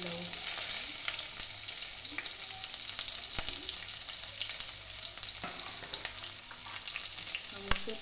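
Freshly added diced red onion sizzling in hot oil in a kadai: a steady frying hiss with a few sharp pops and spits.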